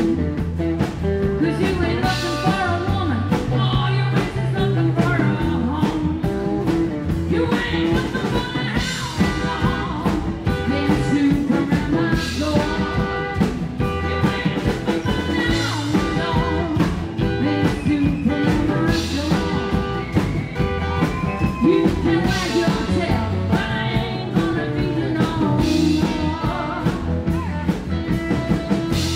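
Rockabilly band playing live: electric and acoustic guitars, upright double bass and drum kit keeping a steady beat, with a woman singing lead.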